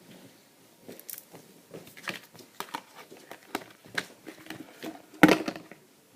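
Skin slime being squeezed and stretched by hand, making irregular sticky clicks and pops, the loudest about five seconds in.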